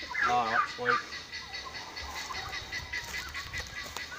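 A domestic fowl gives one loud, wavering, pitched call lasting under a second, starting just after the start, followed by fainter scattered poultry calls.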